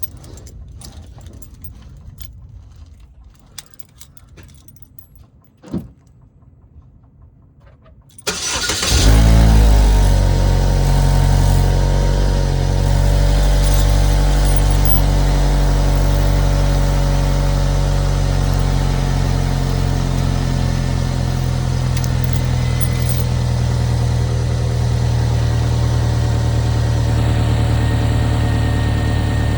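Chevy Equinox engine started about eight seconds in, after a few small clicks and one sharper click, then idling steadily; its running sound carries the exhaust leak the Equinox is notorious for.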